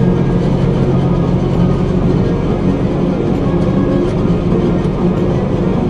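A heavy engine running steadily under a constant low drone, with no change in speed.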